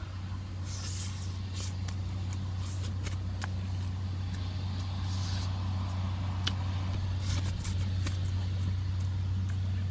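Lip-smacking and mouth clicks from eating with the fingers and licking them, over a steady low hum like a motor running.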